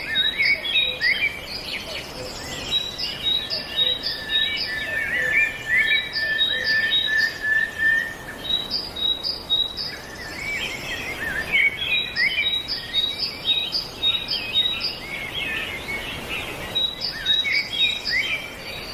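Several songbirds singing and chirping together, with quick runs of short high notes repeated over and over.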